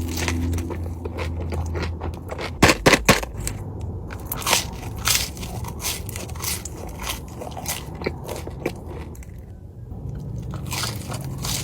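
Close-up crunching bites and chewing of crisp food, with a quick run of loud crunches about three seconds in and scattered smaller crunches after.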